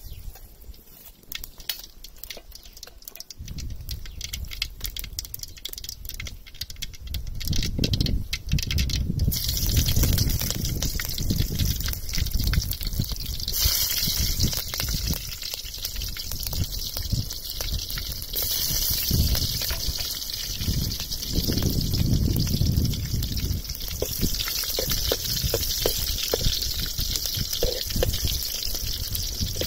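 Green chillies frying in hot oil in an aluminium kadai over a wood fire. From about nine seconds in there is a steady sizzle, which grows louder a few seconds later.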